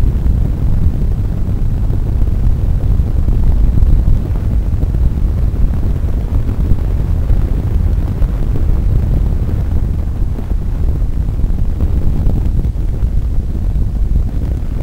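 Wind buffeting the onboard microphone of an unpowered billy kart (gravity soapbox racer) coasting fast downhill, mixed with the rumble of its small tyres on tarmac. It is a steady low rumble with no engine note.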